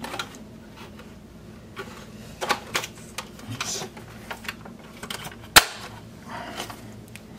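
Plastic clicks and knocks from a refrigerator's control housing being handled and fitted together, with one sharp snap about five and a half seconds in.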